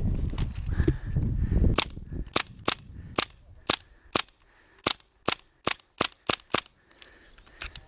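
Airsoft rifle firing about a dozen single shots in quick succession, sharp cracks roughly half a second apart that come faster near the end, after a second or so of low rumble from handling or movement.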